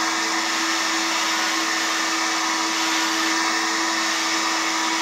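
Window-cleaning robot's suction fan running steadily, holding the robot to the glass as it crawls across the pane: an even whirring hiss with one constant hum-like tone under it.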